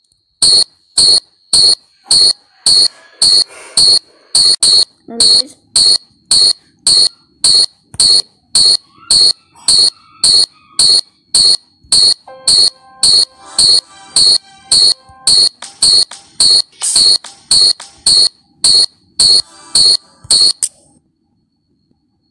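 A high-pitched electronic beep repeating steadily about twice a second, with faint tones between the beeps, stopping abruptly near the end.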